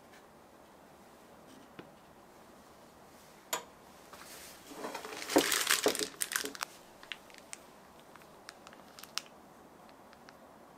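Crinkling and rustling of something being handled for about two seconds, with a sharp click just before it and a scatter of light clicks and taps after.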